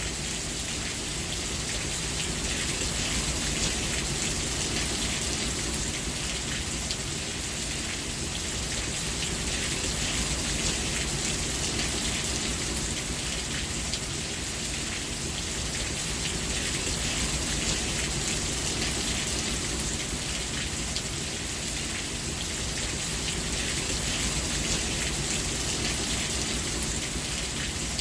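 Steady rain falling and pattering on a surface, an even hiss with scattered drop ticks.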